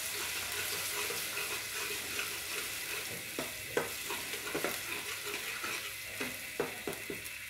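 A paste of onion, tomato, ginger, garlic and chilli sizzles steadily as it fries in hot spiced oil in a kadai. A spatula stirring it gives scattered clicks and scrapes against the pan.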